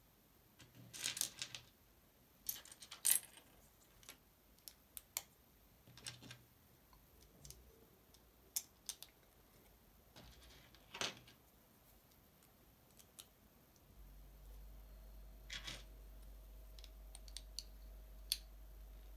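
LEGO bricks being picked out of a loose pile and pressed together by hand: irregular small plastic clicks and clatters. About 14 seconds in, a faint low hum with a steady tone sets in.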